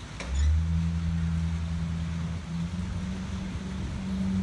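A short click, then an engine comes in loud and runs with a steady low hum, its pitch stepping up slightly about halfway through.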